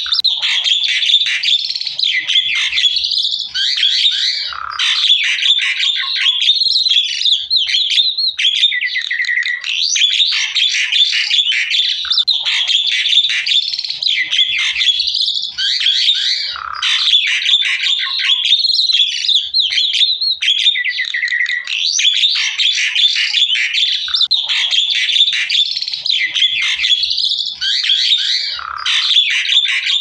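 Javan myna (jalak kebo) singing without pause: a dense, loud stream of chirps, whistles, trills and harsh squawks. The same sequence of phrases comes round about every twelve seconds, as a looped training recording for other mynas to learn from.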